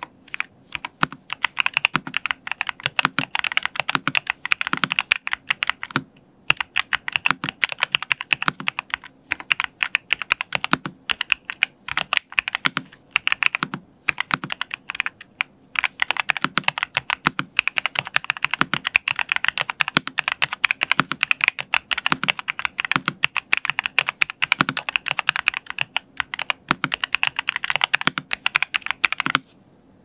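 Typing sound test on a Feker LK75 V3 mechanical keyboard with Akko MDA-profile PBT doubleshot keycaps over lubed and filmed Dareu Skye Blue switches, the board tape-modded with plate and case foam. It is a fast, steady run of keystrokes with a few brief pauses, stopping just before the end.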